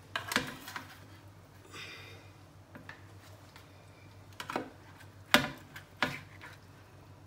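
A slotted serving spoon knocking against a metal roasting tray and the stockpot as pieces of cooked chicken and meat are lifted into the stew: four sharp clicks, the loudest about five seconds in, over a low steady hum.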